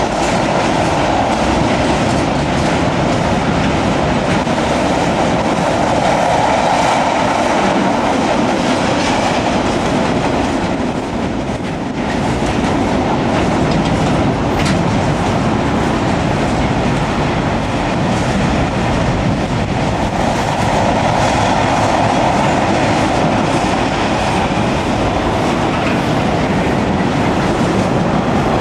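Freight train of container flat wagons rolling past, with a steady noise of steel wheels running on the rails.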